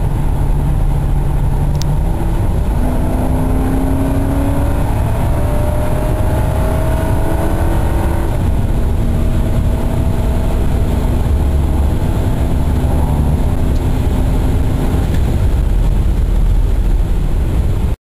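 Inside the cabin of a 2003 Mercury Grand Marquis LS at highway speed, its 4.6-litre modular V8, road and wind noise are loud and steady as the car accelerates past about 60 toward 90 mph. The engine's pitch rises over the first several seconds and then holds steadier. The sound cuts off suddenly near the end.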